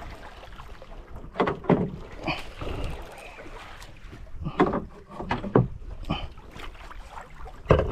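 Water slapping irregularly against the hull of a small boat at sea, several short splashes over a steady low rumble.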